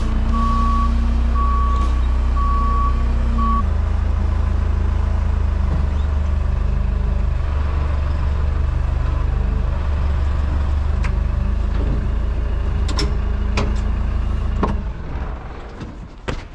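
Diesel engine of a wheel loader running steadily, heard from inside its cab. For the first few seconds its reversing alarm beeps about once a second. Near the end the engine sound drops away, followed by a few sharp knocks.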